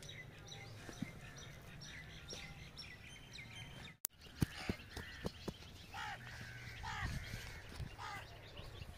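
Small birds chirping and calling repeatedly over a faint outdoor background. Just after a brief break about four seconds in, there are a few sharp clicks or knocks.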